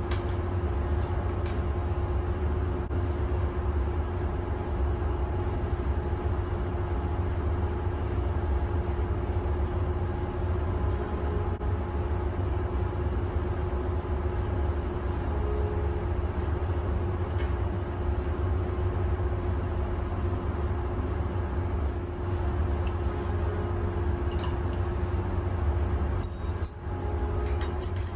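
Steady drone of ship's engine-room machinery: a deep rumble under a constant hum. A few light metal clinks sound near the end.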